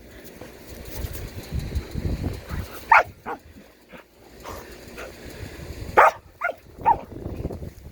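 A dog barking in short, sharp yips: two about three seconds in, then three more in quick succession around six to seven seconds.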